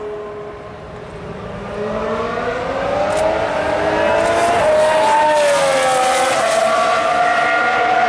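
Formula One car's engine going past on the track. The note gets louder and climbs in pitch from about two seconds in, steps down suddenly about halfway, then falls in pitch as the car goes by and holds a steady loud note near the end.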